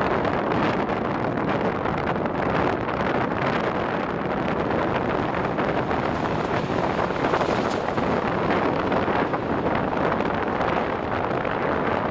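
Steam locomotive hauling a passenger train, its exhaust and running noise a continuous rush as it approaches and passes. Wind buffets the microphone throughout.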